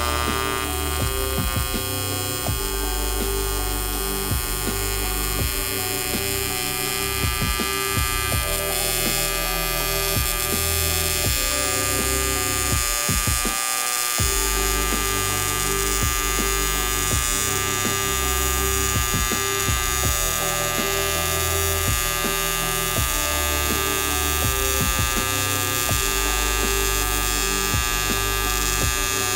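AC TIG welding arc on aluminum, a steady electric buzz, run at 120 Hz AC frequency with high-frequency start and about 110 amps on the foot pedal.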